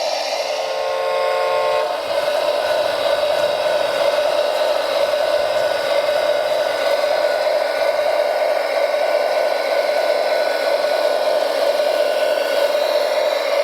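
Steady, high-pitched motor whine from a radio-controlled construction machine running. From about half a second in, a horn-like chord of several tones sounds for a little over a second.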